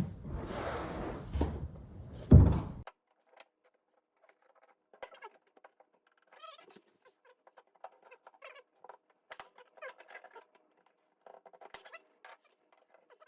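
Hand-tool work on a tailgate latch: a rustle and a sharp knock in the first few seconds, then faint, scattered scratching and clicking.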